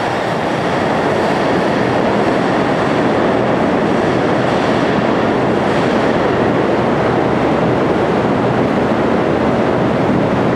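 Keiyo Line E233 series 5000 electric train running away down an underground tunnel: a steady, loud rumble of wheels on rail echoing off the tunnel walls.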